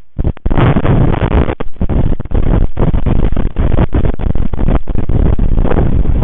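Strong wind buffeting the nest camera's microphone in a wind storm: a loud, continuous rumble that cuts out for split seconds several times.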